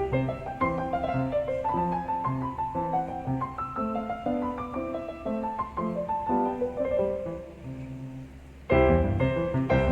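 Background piano music: a gentle melody of single notes over lower bass notes, turning louder and fuller about nine seconds in.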